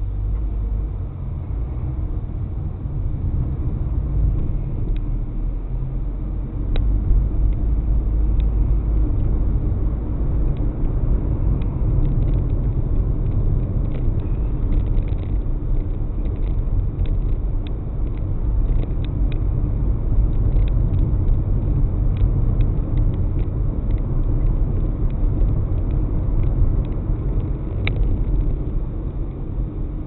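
Car driving on a road, heard from inside the cabin through a dashboard camera's microphone: a steady low rumble of engine and tyre noise, with scattered light clicks.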